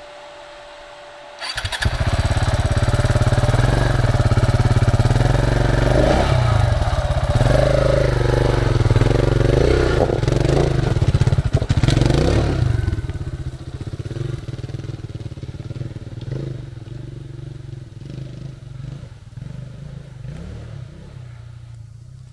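Single-cylinder dirt motorcycle engine cuts in loud about a second and a half in, revving up and down hard, then fades away over the last ten seconds as the bike moves off.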